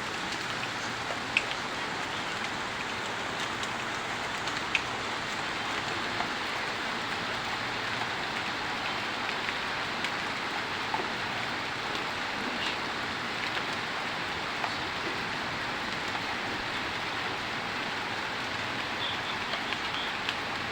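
Steady rain falling, an even hiss with a few sharper drops landing close by, the loudest just over a second in and near five seconds.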